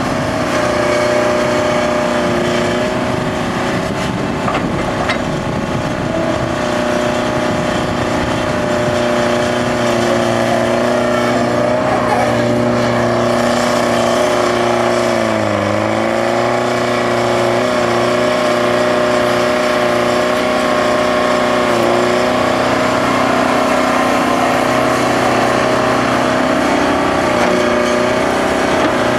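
Bucyrus-Erie 20-H excavator's Detroit Diesel 4-71 two-stroke engine running steadily while the machine digs and swings. About halfway through, its pitch dips briefly and then comes back up.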